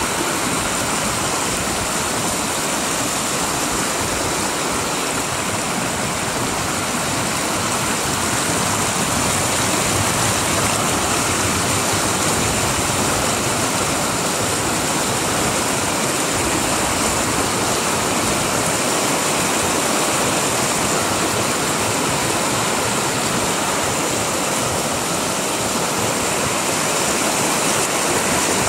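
Shallow river water rushing over rock ledges at a small waterfall, a steady, even rush of whitewater.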